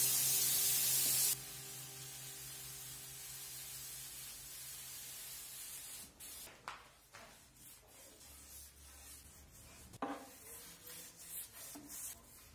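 Gravity-feed paint spray gun hissing as it sprays, loud at first and cutting off sharply about a second in; a softer hiss follows, then short irregular bursts of spray in the second half. Background music plays under it.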